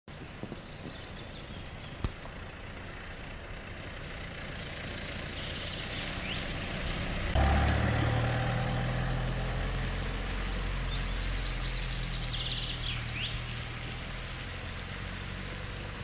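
Dacia Dokker van's engine running at low speed, growing louder as it approaches; from about seven seconds in it is close and steady, then slowly fades. A sharp click about two seconds in and a few bird chirps are heard over it.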